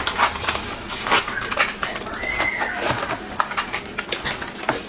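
Close-up eating sounds: quick wet lip smacks and chewing of a soft steamed bun, with many small clicks throughout. A brief high-pitched squeak sounds about two seconds in.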